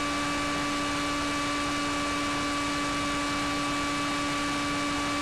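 Audio from a camera on board a flying RC plane: a steady rush of air noise with a constant, unchanging hum from the aircraft's electric motor.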